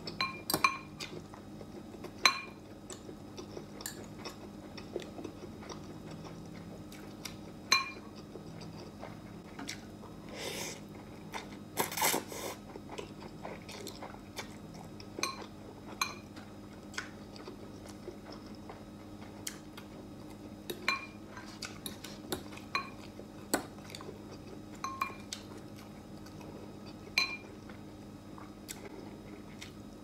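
Metal fork clinking against a glass bowl of noodle soup while stirring and lifting noodles: scattered sharp, ringing clinks, a few loud ones near the start and more spread through the rest, with chewing in between.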